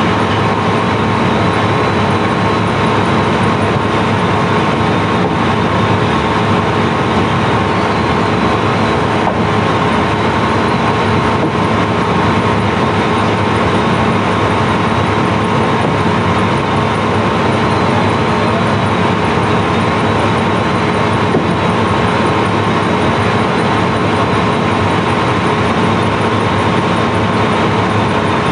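Barge's sand-unloading machinery running: a loud, steady mechanical drone with a constant hum over dense noise that does not change.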